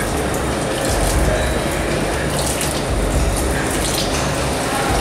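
Bathroom sink tap running steadily, water streaming from the faucet into the basin.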